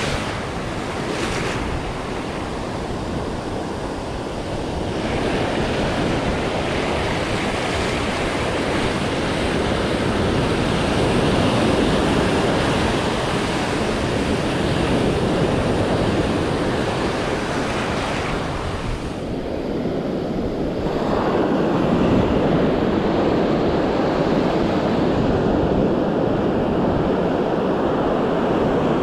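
Ocean surf breaking and washing up the beach, a steady rush that swells and eases with the waves, with wind buffeting the microphone.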